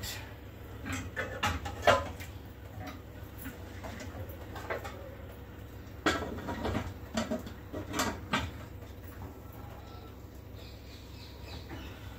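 Aluminium cooking pots and lids clattering on a gas stove: a scatter of metal knocks and scrapes, bunched about a second in and again from about six to eight seconds in.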